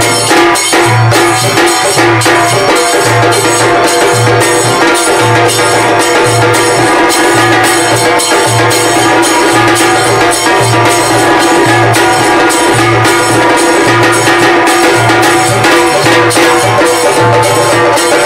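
Background music with a steady percussive beat and a repeating bass line.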